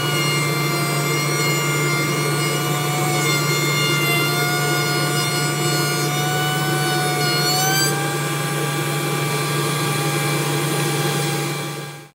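Router table running, a high whine over a steady low hum, as the bit cuts a groove along solid cherry stock. The pitch shifts slightly a couple of times, and the sound fades out near the end.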